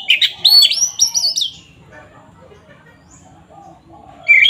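Oriental magpie-robin (kacer) singing in full, loud song: a run of clear whistled notes with quick rising and falling glides over the first second and a half. A pause with faint chattering follows, and a new whistled phrase starts near the end.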